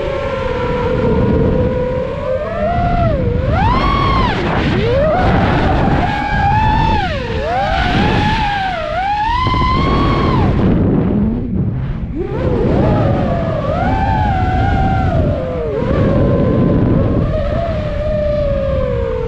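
FPV freestyle quadcopter's motors and propellers whining, the pitch rising and falling constantly with the throttle, over a low rush of air. About two-thirds of the way in the whine drops away almost completely, then spools back up.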